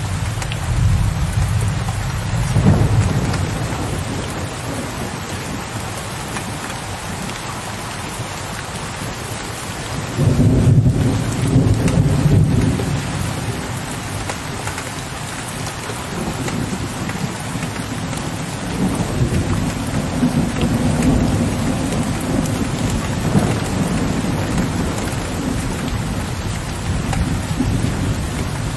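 Steady rain with distant thunder rolling low. The loudest rumble comes in suddenly about ten seconds in and lasts a few seconds, with weaker rumbles early on and again past the middle.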